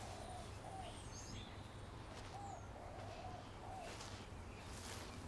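Faint outdoor ambience with distant birds calling: a handful of short low calls and a few high chirps over a steady low hum.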